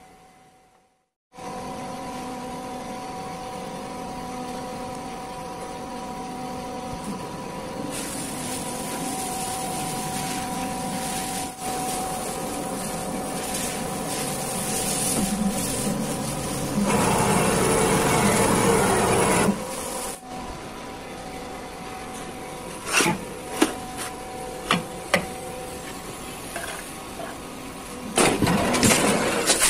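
Press brake running: a steady motor hum with a few held tones. A louder rushing noise lasts a couple of seconds midway, then several sharp clicks and knocks follow.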